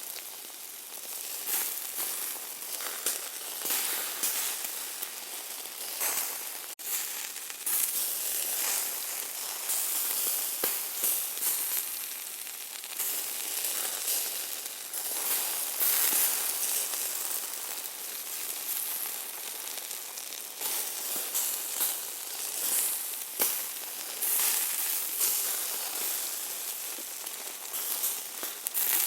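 Meat sizzling on a hot grill: a steady hiss of frying fat with frequent sharp crackles and pops.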